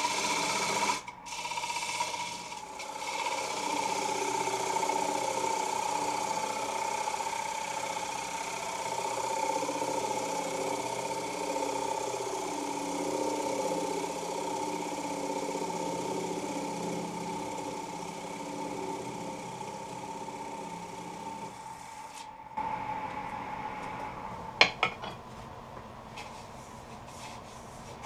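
Gouge cutting the face of a thin alder plate spinning on a wood lathe: a steady rough hiss of shavings with a high tone running through it. About three-quarters of the way through the cutting stops abruptly, leaving a quieter run with two sharp clicks.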